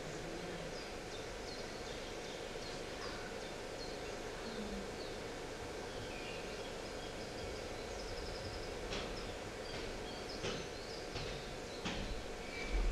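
Birds chirping, played back as a stage sound effect: many short high chirps and a quick trill over a steady background hum. A few sharp knocks come in the second half.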